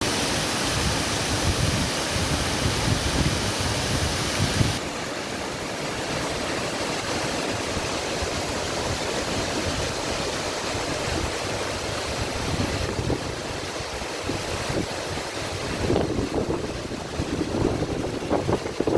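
Waterfall and stream water rushing in a steady hiss. About five seconds in it shifts abruptly to a quieter, duller rush, and near the end irregular louder bursts come through over it.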